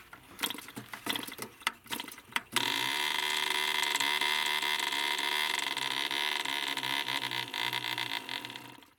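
Tiny model-aircraft diesel engine being hand-started: a few sharp pops as the propeller is flicked, then it catches about two and a half seconds in and runs steadily with a high, buzzing note until it cuts out suddenly near the end.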